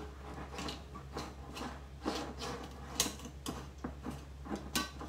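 Scattered light clicks and taps of a measuring spoon against a glass jar and cup as instant yeast is spooned out.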